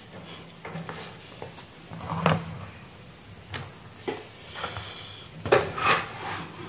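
Light clicks and knocks from handling cables, a mains plug and a multimeter on a workbench, about eight or nine irregular ones with the loudest a little over two seconds in, over a faint steady low hum.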